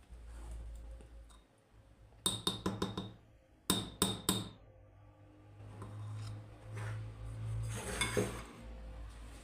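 A spoon clinking against a glass container in two quick runs of three or four light strikes each, followed by softer handling and scraping sounds.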